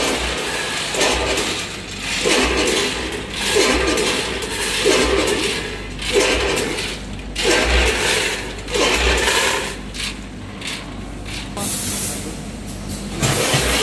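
Multihead combination weigher running on peanuts: a low steady hum under a burst of rattling that repeats about every 1.3 seconds as its stainless-steel hoppers open and drop nuts.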